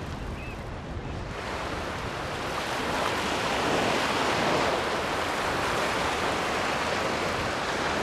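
Sea surf breaking and washing over rocks, swelling about a second in and staying loud through the rest.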